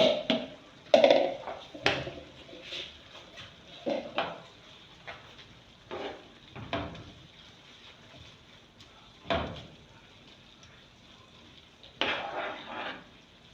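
A spoon stirring a pot of chicken pie filling, knocking and scraping against the pot at irregular intervals, as cornflour slurry thickens the sauce.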